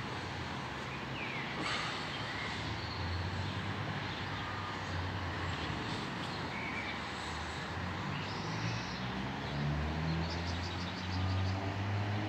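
Diesel engine of a Mercedes-Benz SK skip lorry running out of sight, a low drone that swells from a few seconds in and is strongest near the end. A few short bird chirps sound over it.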